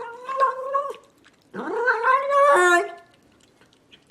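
A domestic cat making two long, drawn-out meows, the second one longer, its pitch dropping suddenly near its end.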